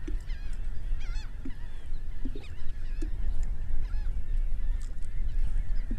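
Birds calling: many short, wavy, overlapping high calls, over a steady low rumble of wind on the microphone.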